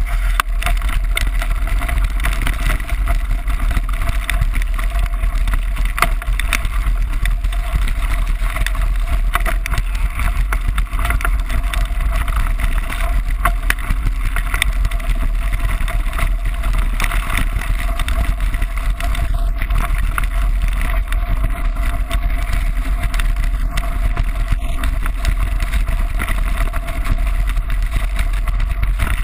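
Steady wind buffeting the microphone of a camera moving with a mountain bike on a fast descent, over a continuous rattle and ticking of tyres and frame on a gravel track.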